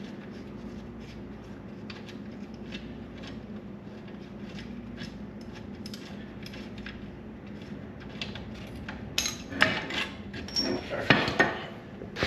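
Metal tools and steering parts clinking and clanking as they are handled. There are light scattered ticks at first, then a run of louder metallic clanks in the last few seconds, over a steady low hum.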